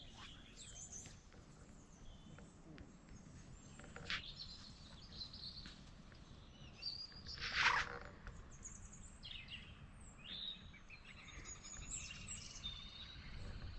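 Wild birds chirping and singing in short scattered phrases over a faint steady low background noise. One brief louder sound comes about eight seconds in.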